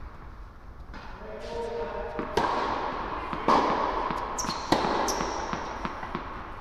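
Tennis ball bounced on an indoor hard court before a serve: three loud bounces about a second apart, then fainter ones, each ringing on in the big hall's echo. A voice is heard briefly about a second and a half in.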